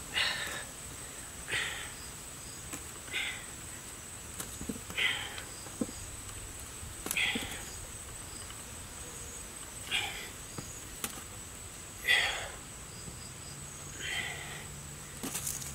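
Red fruits handled out of a wicker basket and set down on a wooden plank, giving a few light knocks, while short breath-like puffs come every couple of seconds. A faint steady high insect drone runs underneath.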